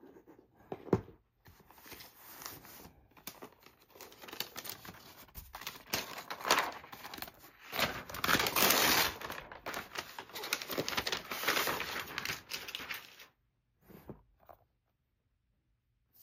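Paper wrapping crinkling and tearing as it is pulled off a MacBook Air, a long run of crackly rustles that is loudest a little past halfway and stops near the end. A single sharp knock about a second in.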